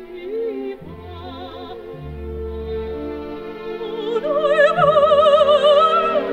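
Operatic music: a singer with wide vibrato over an orchestra, swelling about four seconds in to a loud, high held note.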